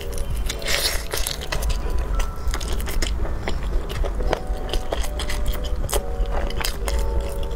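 Close-miked biting and chewing of a cola-braised chicken wing, a steady run of short, sharp wet clicks and smacks.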